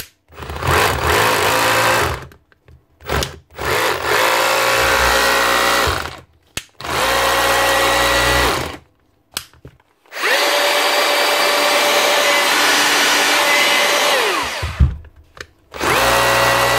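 Bosch GBH 36 VF-LI Plus 36 V cordless SDS rotary hammer test-run in about six short trigger bursts, its motor whining steadily at speed and winding down after each. The repaired gearing now drives it again.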